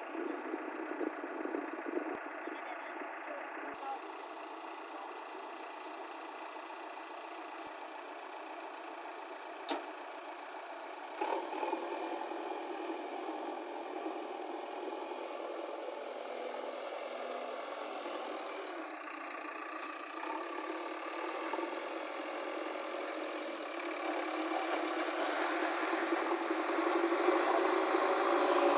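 JCB backhoe loader's diesel engine running, growing louder over the last few seconds.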